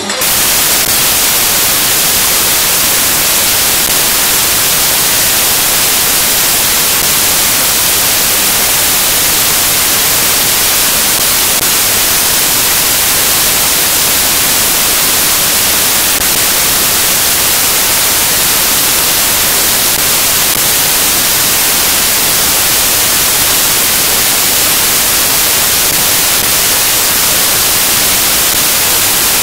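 Loud, steady static hiss with nothing else in it, strongest in the treble. It is a noise artefact in the recording rather than sound from the stage.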